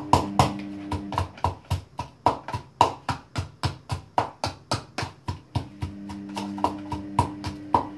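Pestle pounding garlic in a mortar: rapid, even strikes, about three to four a second, each with a short ring.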